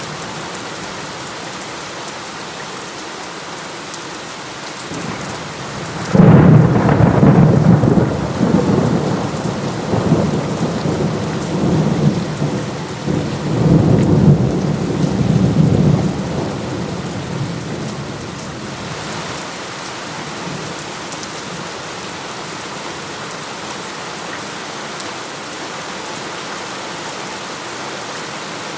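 Steady heavy rain, with a loud thunderclap breaking about six seconds in. It rolls on in several swells for about ten seconds, then dies away, leaving only the rain.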